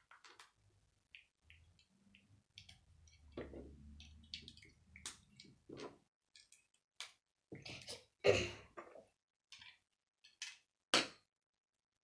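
Small plastic Lego bricks clicking and tapping as pieces are picked up, handled and pressed onto a part-built model, with a louder clack past the middle and another near the end.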